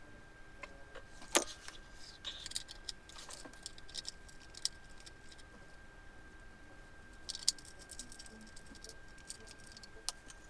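Ring light and its tripod stand being handled and assembled: scattered clicks and small rattles of plastic and metal parts, the sharpest click about a second and a half in.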